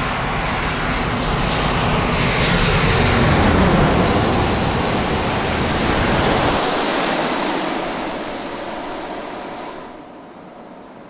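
Boeing 737-800 jet airliner passing low overhead on final approach. The noise of its twin CFM56 turbofans builds to a loud peak and then fades as it moves away, with a high whine falling in pitch. Near the end the sound drops suddenly to a fainter, steady hum.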